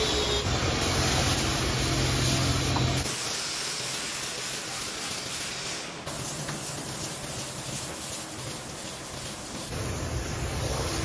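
Air spray gun hissing as it sprays clear finish onto wood, with a steady low hum under it that drops out about three seconds in; a lighter hiss carries on after.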